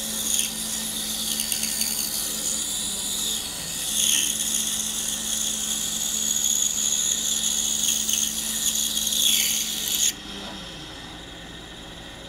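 Pegas band saw with a fine blade cutting through a small block of buckeye wood, a steady hiss over the motor's hum. About ten seconds in the cut finishes and the sound drops to the saw running without load.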